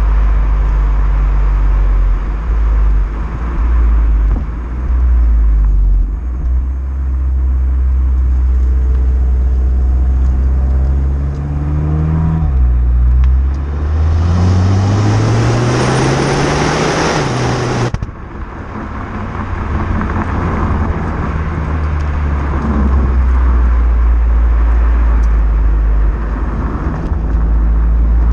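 Renault Mégane GT's 1.6 TCe turbocharged four-cylinder engine through its stock exhaust, in Neutral drive mode, running at a steady drone. About halfway through, the engine note climbs under acceleration for several seconds with a louder rush of noise, then cuts off suddenly and falls back to a steady drone.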